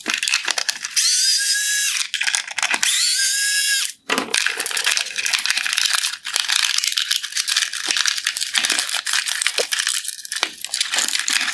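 Power screwdriver with a T20 Torx bit running in two short bursts with a steady whine, backing out two screws, followed by a long stretch of rapid clicking and rattling of the tool and plastic headlight parts.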